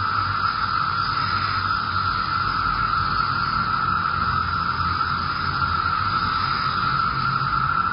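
Steady, even hiss-like noise with a faint low hum, unchanging throughout.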